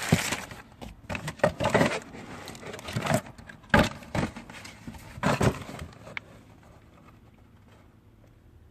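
Rustling and crinkling handling noise from a new cabin air filter and its wrapping, in a run of irregular bursts with a couple of sharp knocks, dying away about six seconds in.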